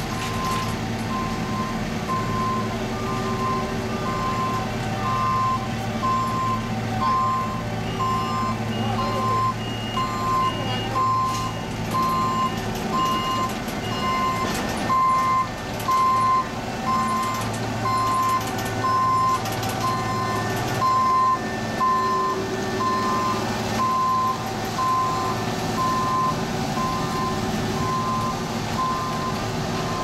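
Diesel engines of an asphalt paver and a road roller running, with a backup alarm beeping steadily about once a second throughout. A second, higher-pitched backup alarm beeps along with it for several seconds near the middle.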